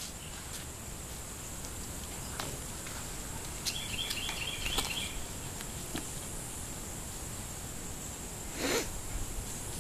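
Outdoor summer ambience: a steady high-pitched insect drone, with a bird's quick run of chirps about four seconds in, a few faint clicks, and a short rough noise near the end.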